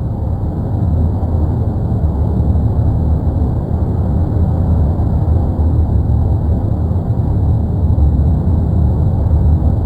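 Erupting volcano giving off a continuous deep, rumbling roar, steady throughout with no separate blasts.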